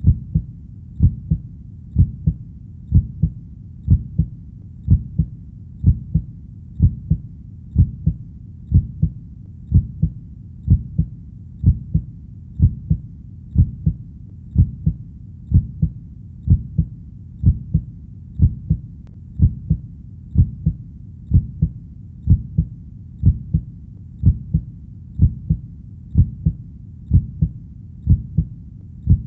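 Heartbeat, a steady lub-dub of paired low thumps, about one beat a second.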